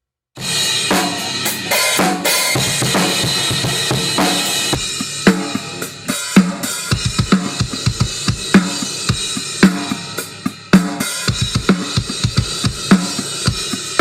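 Drum kit playing a heavy metal pattern, starting abruptly about half a second in: a wash of crashing cymbals, then a fast run of kick and snare hits with cymbals.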